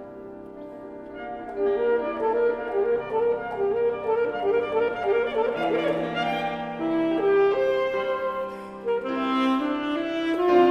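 Alto saxophone and piano playing a contemporary classical sonata: softer at first, then growing louder about a second and a half in, with quick moving notes and some held tones.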